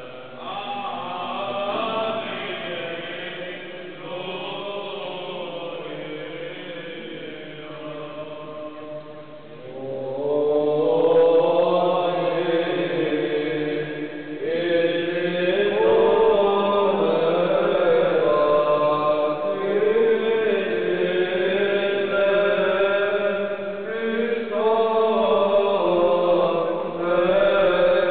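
Voices chanting a slow religious chant, getting louder about ten seconds in.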